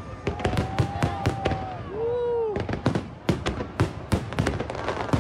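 Aerial fireworks shells bursting high overhead in a rapid, irregular string of sharp bangs and crackles, several a second. A drawn-out tone runs under the first couple of seconds, and a brief rising-and-falling tone comes in the middle.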